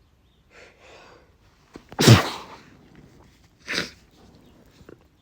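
A man sneezing: a few breathy intakes, then a loud sneeze about two seconds in, followed by a shorter, quieter second sneeze about a second and a half later.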